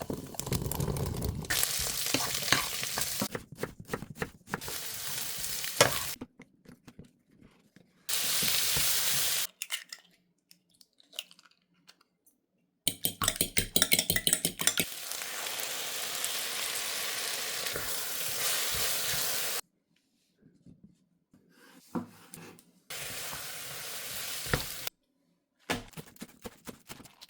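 Potatoes and sausages sizzling as they fry in a pan, heard in several short stretches of steady hiss with sudden breaks between them, along with the clicks and knocks of stirring and turning with a kitchen utensil.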